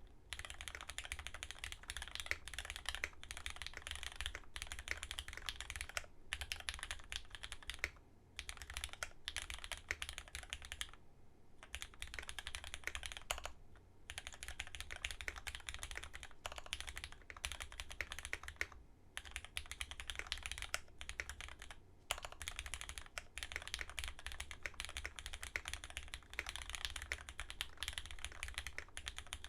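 Typing on a Dolphin V3 custom mechanical keyboard with lubed Cherry MX Black linear switches, an aluminium plate and GMK keycaps: dense runs of keystroke clacks, broken by brief pauses every few seconds.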